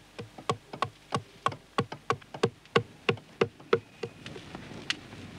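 Hand adze chopping into a wooden mask being carved: a steady run of sharp wooden knocks, about three blows a second, that stops a little over halfway through, with one more blow near the end.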